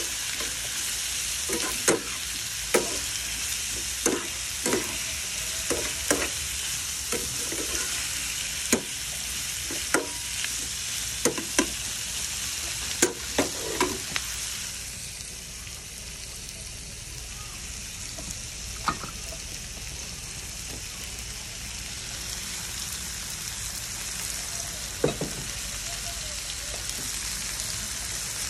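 Shrimp and garlic frying in oil in a nonstick pan with a steady sizzle. A spatula scrapes and clicks against the pan about once a second through the first half, then only now and then.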